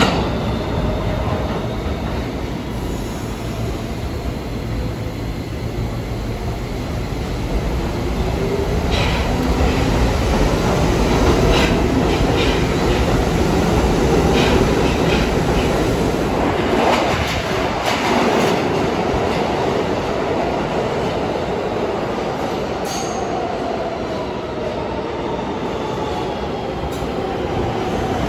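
New York City subway train running along the track, its motor whine climbing in pitch and then falling away. A run of clacks over the rail joints comes through the middle.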